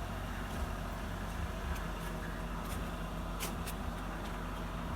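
A steady low engine hum, with a few light clicks between about two and four seconds in.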